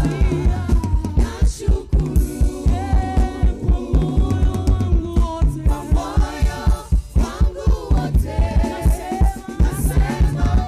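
Gospel song performed by singers with a band, a steady fast bass-drum beat under the voices.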